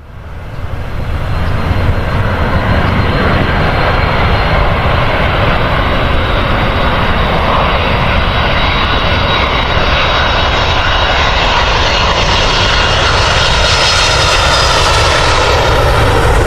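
Airliner's engines running loud and steady as it passes close by, swelling in over the first two seconds, with a higher hiss building near the end.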